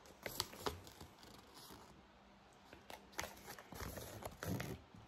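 Faint crinkles and ticks of a paper collector's checklist being handled and straightened, with a brief low hum near the end.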